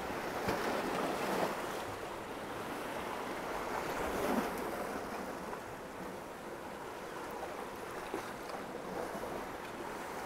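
Sea swell washing and breaking against coastal rocks: a steady rush of surf that surges and eases.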